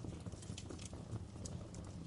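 Wood fire crackling in a fireplace: irregular small snaps and pops over a steady low rumble.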